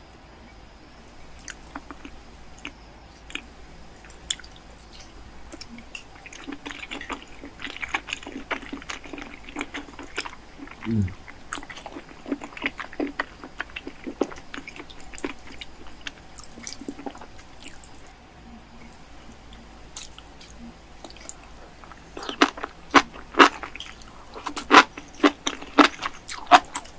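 Close-up eating sounds of a person chewing a burger: wet chewing and mouth clicks, with a run of louder, sharper crunchy bites in the last few seconds.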